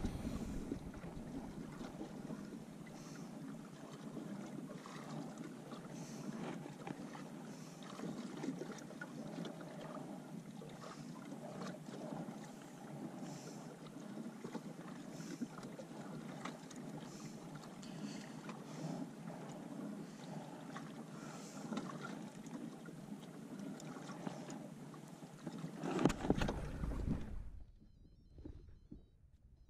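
Light water lapping against a drifting plastic kayak's hull, with scattered small knocks and creaks. Near the end it swells louder, then cuts off suddenly to near quiet.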